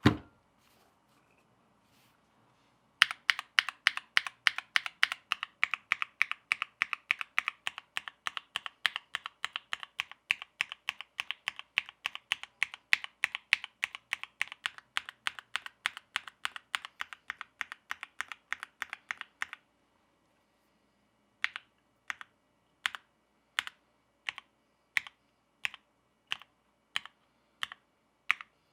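Mechanical keyboard with an FR4 plate typed on quickly and steadily for about sixteen seconds, then single keys pressed one at a time, a little under a second apart. A short thump right at the start.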